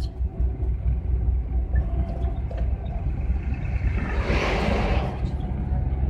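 Steady low rumble of a GAZelle camper van's engine and tyres, heard from inside the cab while driving. About four seconds in, a brief rushing noise swells and fades.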